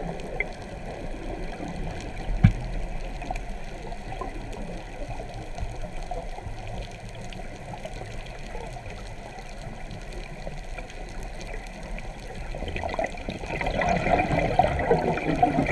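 Underwater sound heard through a camera housing: a steady low rumble and hiss with one sharp knock about two and a half seconds in, then gurgling bubbles building near the end, typical of a scuba diver's exhaled breath.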